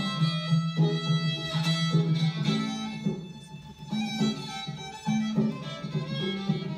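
Fiddle and banjo playing an old-time Appalachian tune together live, the fiddle carrying the melody over the banjo's steady plucked rhythm.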